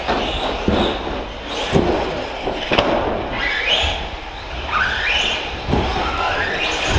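Radio-controlled short-course trucks' electric motors whining and rising in pitch as they accelerate, several times over. Several thumps and knocks from the trucks hitting the track.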